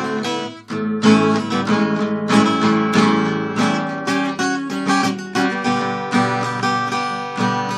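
Acoustic guitar strummed in steady chords, with no singing, and a short break in the strumming about half a second in.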